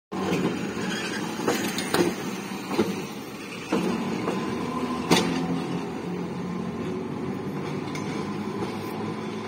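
Toyohashi Railroad streetcar running past slowly and taking a tight curve, with a steady running noise and low hum. Its wheels knock sharply over rail joints several times in the first five seconds, loudest about five seconds in.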